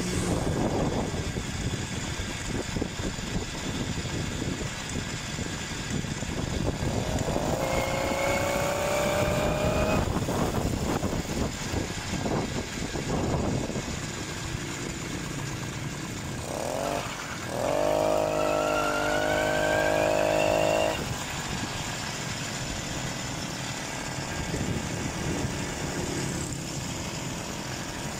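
A BT80 80cc two-stroke motorized-bicycle engine running under way, with rumbling wind and road noise. Twice, about a third of the way in and again past halfway, a louder engine note comes through and climbs in pitch.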